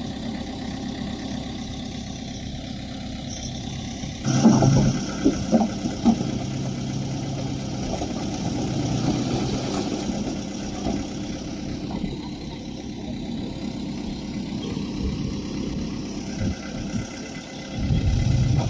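Diesel engine of heavy earthmoving machinery running steadily. About four seconds in it grows louder, with a few sharp clanks over the next two seconds, and then runs on.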